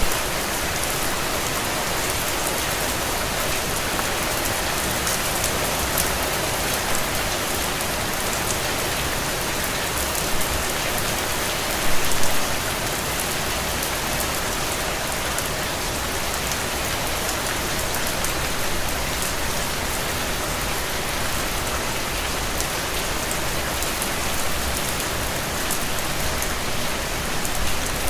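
Steady rain falling on a window, an even hiss with fine patter of drops, with a short louder gust of rain about twelve seconds in.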